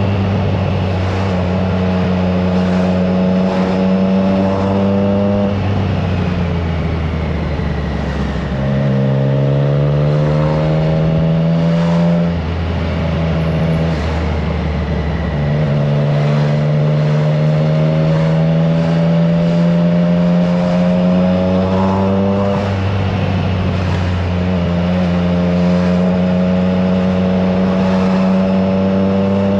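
Triumph Trident 660's inline three-cylinder engine breathing through a FireTong aftermarket exhaust while riding. The engine note climbs and drops several times as the bike accelerates, shifts gears and eases off.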